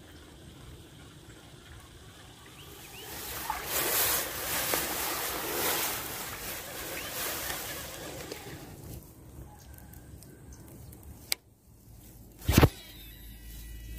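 Handling noise on the camera's microphone: a rustling noise swells for about five seconds and fades. Near the end come a sharp click and then a heavy knock, the loudest sound, as the angler's sleeve brushes and bumps the camera.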